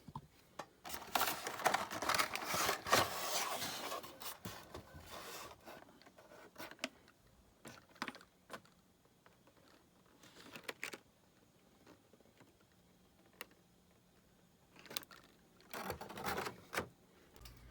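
A Hot Wheels 5-pack's cardboard and plastic blister packaging being torn open and handled: a long stretch of rustling and ripping in the first few seconds, scattered clicks and taps, and another short burst of rustling near the end.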